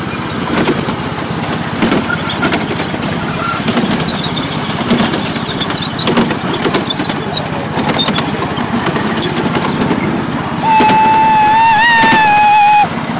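Miniature park railway train running along its track: a continuous rattle from the carriages with frequent sharp clicks. Near the end the locomotive sounds its horn, one steady high note held for about two seconds, as a warning on the approach to a foot crossing.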